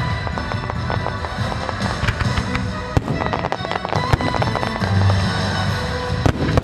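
Dense fireworks finale: many aerial shells bursting and crackling in quick succession, over music.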